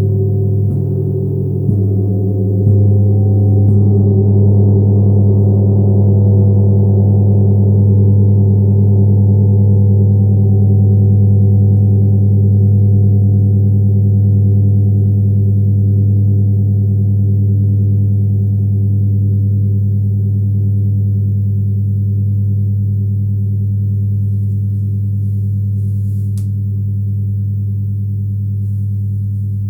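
Tibetan meditation gong (model 80G-IV) struck softly a few times in quick succession, then left to ring in a long, deep hum. Its higher overtones die away over the following seconds while the low tone carries on, slowly fading.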